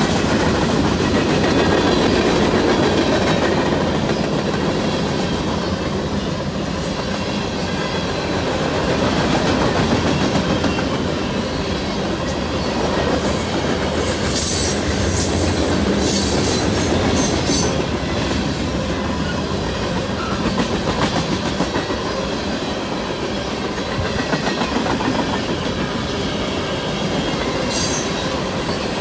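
A freight train of tank cars, covered hoppers and flatcars rolling past at steady speed: the steady rumble of steel wheels on the rails, with clicking as the wheels cross rail joints. A few brief high squeals from the wheels come in the middle and near the end.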